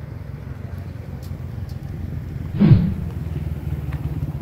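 Small motorcycle engines running with a low, steady drone. About two-thirds through, one passes close and louder, its pitch dropping as it goes by.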